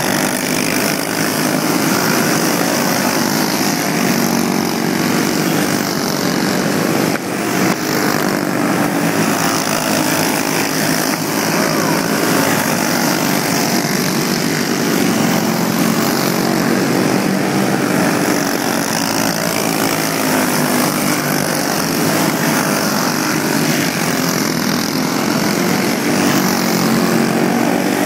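A pack of racing karts with stock Briggs & Stratton Animal single-cylinder four-stroke engines running hard around the track, a steady, continuous engine drone.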